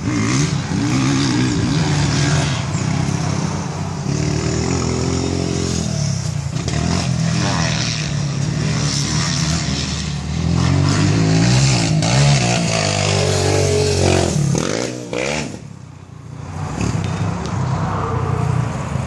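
Honda CRF250R's four-stroke single-cylinder motocross engine being ridden hard, its revs repeatedly climbing and falling as the rider works the throttle and gears. About sixteen seconds in, the sound drops away briefly, then builds again.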